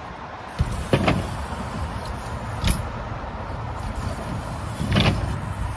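BMX bike's wheels knocking and rolling on a skatepark ramp, with a few sharp knocks, the strongest about a second in and again near the end, over a steady low rumble.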